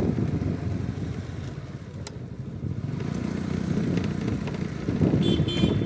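Rough, unsteady rumble of riding along a road on a motorcycle, with wind buffeting the microphone; it eases about two seconds in and builds again. A brief high-pitched tone sounds near the end.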